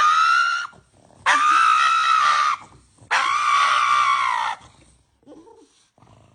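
Three long, high-pitched screaming calls from a pet, each held at a steady pitch, the last two lasting over a second each, followed by a few faint short noises.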